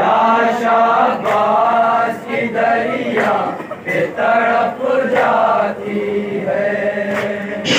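A group of men chanting a noha, a Shia mourning lament, in chorus: several long, drawn-out sung phrases with short breaks between them.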